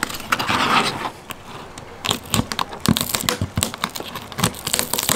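Irregular clicks and crackling from the hard shell of a raw spiny lobster tail being handled, with a brief rustle in the first second.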